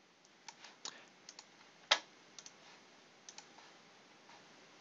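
Computer mouse clicking: a scattering of short, sharp clicks, some in quick pairs, with one louder click about two seconds in.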